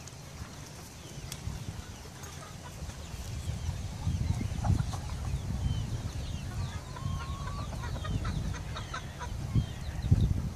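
Chickens clucking, many short calls over an irregular low rumble that grows louder partway through.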